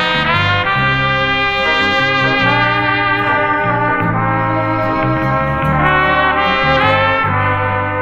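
Instrumental brass-ensemble music led by trumpet, with full sustained chords over a bass line and phrases that swoop upward near the start and again about seven seconds in. Played from a transfer of a vinyl LP.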